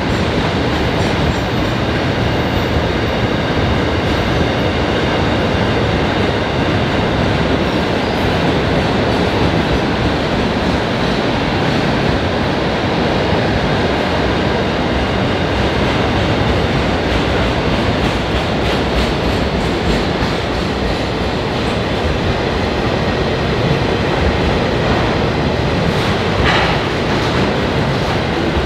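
Container freight wagons of a long freight train rolling steadily past on broad-gauge track, their wheels making a continuous rolling noise on the rails, with a brief sharper sound near the end.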